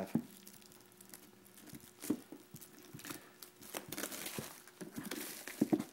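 Clear plastic shrink wrap crinkling and tearing as it is pulled off a cardboard trading-card box, in irregular crackles that get busier after about two seconds.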